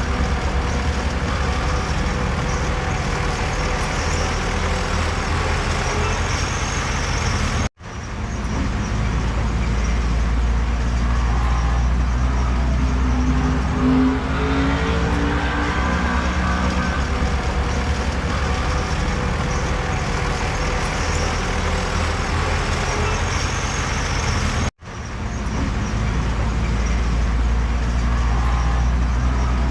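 Heavy diesel earthmoving machinery running steadily with a deep engine drone. The sound cuts out abruptly twice, about eight seconds in and again near twenty-five seconds, and quickly fades back in each time.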